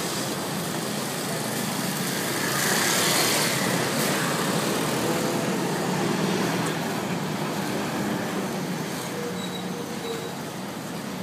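Road traffic: cars, buses and scooters running and passing, loudest about three seconds in.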